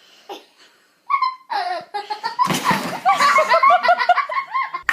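A person laughing, starting about a second in and building into a long run of rapid, repeated bursts of laughter.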